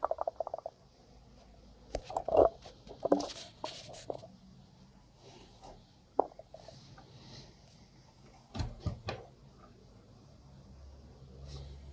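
Handling clicks and knocks at a bench power supply, with test clips on an electrolytic capacitor and the supply's control knob being worked. A quick run of small clicks comes at the start, a cluster of knocks around two to four seconds in, a single sharp click around six seconds, and a pair of dull thumps near nine seconds.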